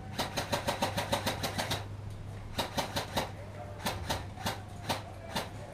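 Airsoft gun firing: a quick string of about a dozen shots at roughly seven a second, then about nine more shots in short pairs and singles.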